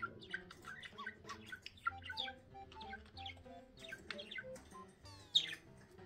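Budgerigar chirping and chattering in quick short calls, with one loud sharp chirp about five seconds in, over soft background music.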